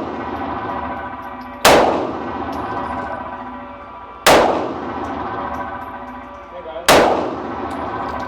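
Three pistol shots from a Smith & Wesson Shield EZ, fired slowly about two and a half seconds apart. Each is a sharp crack followed by a long echoing ring-out in the indoor range.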